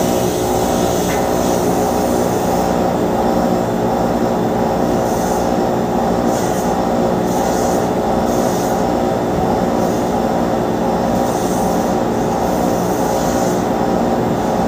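Boeing 777-300ER pushback: a steady, loud whine and drone of the airliner's turbines mixed with the towing tug's engine, holding one pitch as the aircraft is pushed back.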